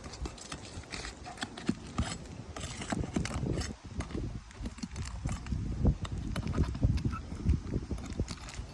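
Irregular knocks, taps and scrapes of hand tools on asphalt roof shingles, as the sealed tabs are pried loose and the nails pulled to remove a damaged Tamko shingle.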